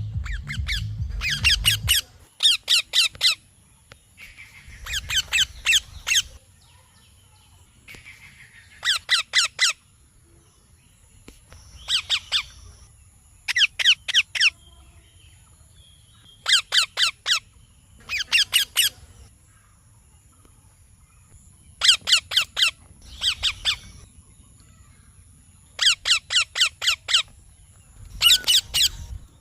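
Baby Indian ringneck parakeet chirping in short bursts of rapid, high repeated notes, one burst about every two seconds.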